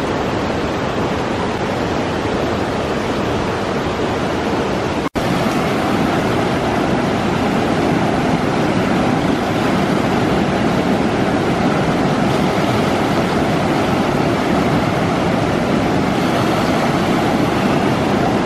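River rapids rushing over flat rock ledges, with a small cascade spilling into a pool: a steady, full rushing of water, broken by a momentary gap about five seconds in.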